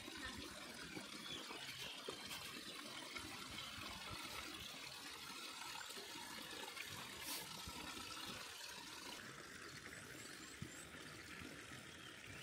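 Faint running water trickling steadily.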